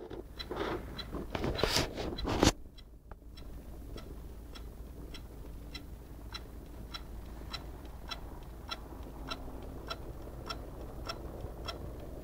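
Asus G73Jh laptop making a strange, evenly repeating clicking noise, about two clicks a second over a low hum, after a louder irregular rustle in the first couple of seconds. It is the noise that came just before the laptop crashed to a blue screen.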